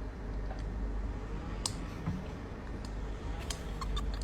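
Steady low hum and room noise, with a few faint clicks.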